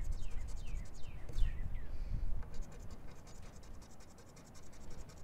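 Scratching the coating off a scratch-off lottery ticket in quick repeated strokes. Squeaky short scrapes come in the first two seconds, then faster, finer scratching follows.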